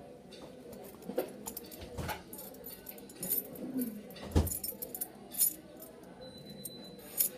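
Light jingling and scattered small clicks, with one dull thump about four and a half seconds in.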